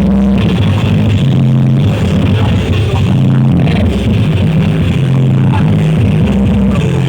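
Loud music played through a large sound system, carried by long held bass notes about a second each, with little treble.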